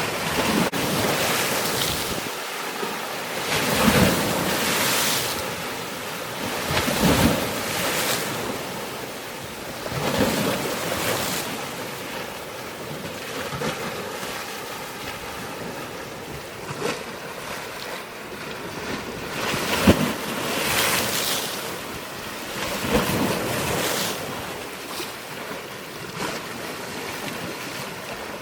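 Waves surging and washing in every few seconds, with wind buffeting the microphone.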